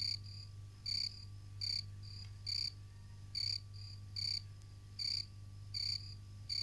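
A frog calling with short, high chirps repeated a little less than once a second, over a low steady hum.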